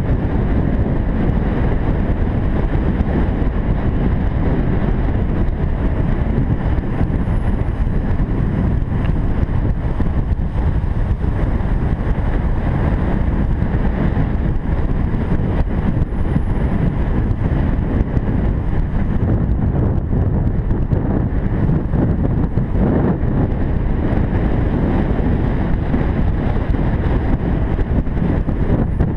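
Wind buffeting the microphone of a camera moving fast down a road: a loud, steady low rush.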